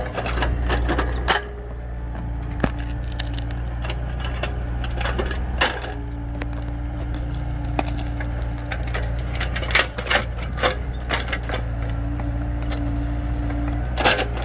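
Mini excavator's diesel engine running steadily under load as its bucket digs around and pries at an acacia tree stump, with clusters of sharp cracks and snaps from roots breaking and the bucket working in the soil. A steady hum comes and goes over the drone a few times.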